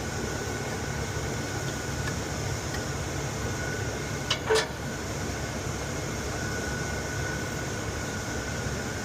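Steady mechanical hum with a faint high whine, broken about halfway through by two sharp clicks in quick succession.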